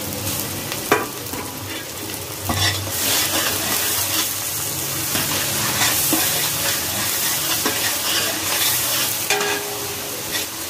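A ladle stirring and scraping through tomatoes, onions, mint, coriander and green chillies frying in hot oil in a large metal pot: a steady sizzle broken by irregular scraping strokes.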